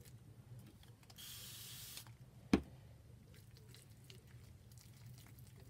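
Chalk paste being stirred in its small jar with a stick, giving faint scraping ticks. A short hiss comes a little over a second in, and a single sharp knock about halfway through.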